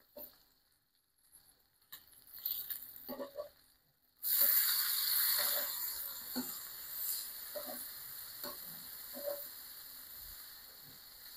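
Metal tongs clicking and tapping on a cast iron griddle, then, about four seconds in, a sudden sizzle as bacon strips are flipped onto the hot flat plate over charcoal. The sizzle slowly fades while the tongs keep tapping now and then.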